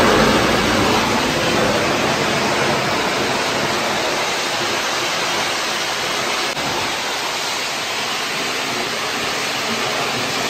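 Cold-spark (cold fire) fountains on a rotating, remote-fired stand, burning with a loud, steady hiss that is a little stronger at the start and then holds level.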